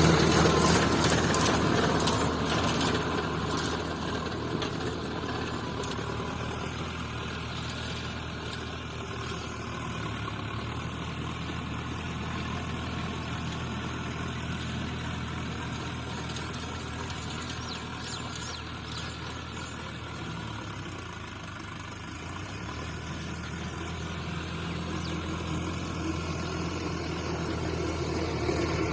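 Sonalika DI 750 III RX Sikander tractor's diesel engine running steadily while ploughing. It fades over the first few seconds as it draws away, then grows louder again over the last several seconds.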